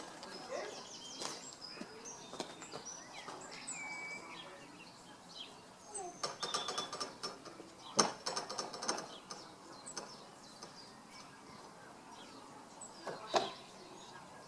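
Birds chirping and whistling, with two bursts of rapid clicking rattle about six and eight seconds in and a sharp click near the end.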